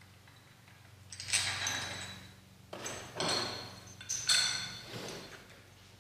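Aluminum davit bracket parts, bolts and washers clinking and rattling as they are handled and fitted by hand, in about three bouts starting about a second in, with a light metallic ring.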